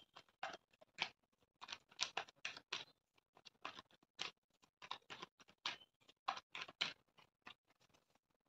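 Tarot deck being shuffled by hand: faint, irregular card flicks and clicks, about two or three a second, stopping shortly before the end.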